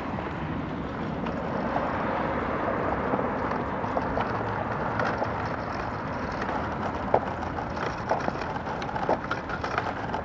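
Child's balance bike rolling over asphalt: a steady rough rolling noise, with scattered sharp clicks and ticks in the second half.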